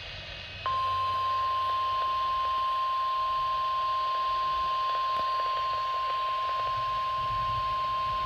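NOAA Weather Radio warning alarm tone: a single steady tone of about 1050 Hz, heard over the radio receiver with a low background hiss. It starts under a second in and holds unbroken, signalling that a new severe thunderstorm warning is about to be read.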